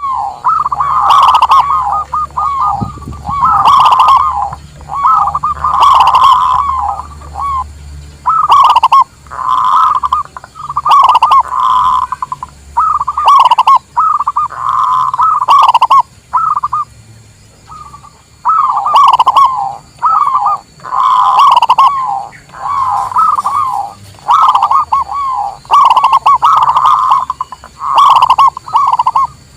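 Zebra dove (perkutut) singing: a string of cooing phrases, each about a second long, repeated with short pauses between them.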